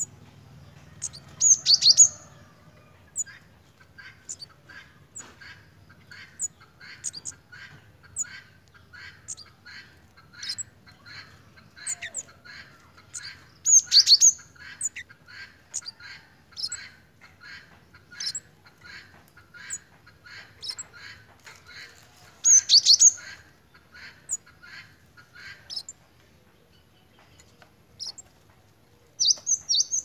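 Male scarlet-headed flowerpecker (kemade) in breeding condition, calling: a long run of short, quick chips, about two a second, broken four times by louder high twittering bursts.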